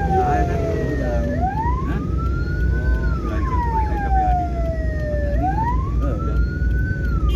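A vehicle siren wailing in a slow rise and fall, about once every four seconds, over a steady low rumble.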